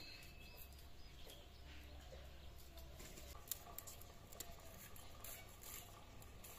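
Faint clicks and scrapes of vegetables being cut by hand on a boti, a curved floor-mounted blade, with one sharper click about three and a half seconds in. Faint bird calls sound behind.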